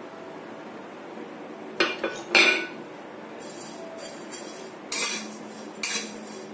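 Metal spatula scraping and clinking against a metal kadhai while stirring dry vermicelli being roasted, in a handful of separate strokes starting about two seconds in, the first two the loudest.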